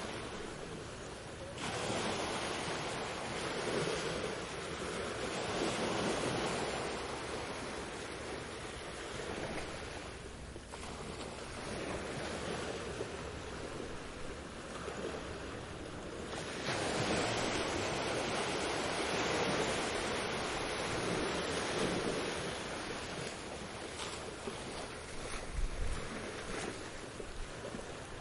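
Sea waves washing onto a beach in slow surges, a large wave rising about two seconds in and another about halfway through, with a few short clicks near the end.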